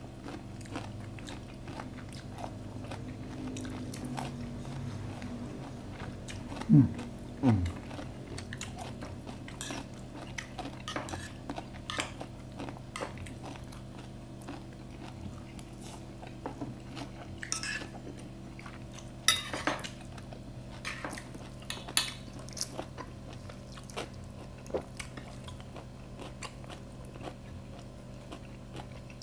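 Close-up eating sounds: crunchy bites and chewing of raw vegetables and fried chicken, with spoons clinking against plates. About seven seconds in come two short loud sounds falling in pitch.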